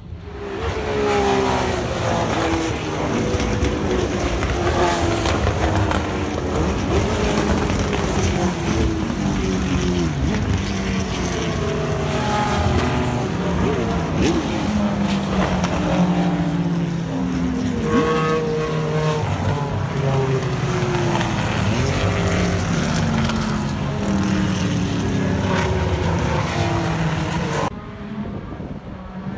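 Race car engines on the track, revving up and falling away again and again as several cars accelerate, change gear and pass. The sound drops off sharply near the end.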